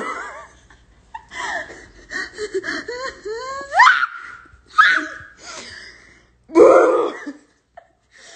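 Two young women imitating dog barks at each other in short vocal yaps, one rising into a yelp about four seconds in, mixed with laughter.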